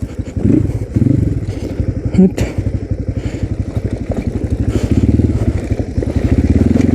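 Crossfire RM250 dirt bike's single-cylinder engine running at low revs while descending a rough off-road track, with a sharp knock about two seconds in. The engine grows louder near the end.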